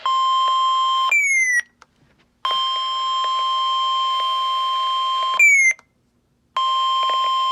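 NOAA Weather Radio warning alarm tone, a steady 1050 Hz beep that signals an urgent weather warning is about to follow. It sounds in three stretches of one to three seconds, the first two each ending in a short falling chirp and a brief silence.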